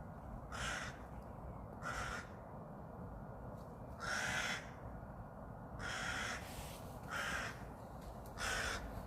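Crow cawing: six harsh caws, each about half a second long, spaced one to two seconds apart.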